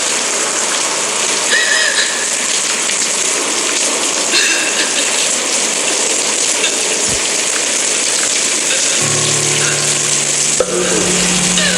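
Steady rain noise with a few brief high chirps over it. Near the end, music comes in with low held notes.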